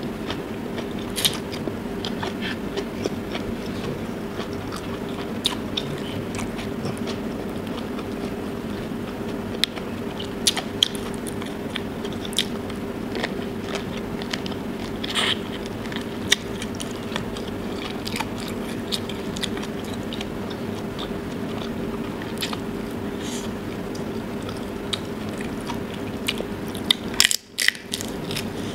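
Close-up eating sounds: biting into and chewing tiger prawn and rice, with sharp wet mouth clicks and smacks, over a steady low hum. The sound drops out for a moment near the end.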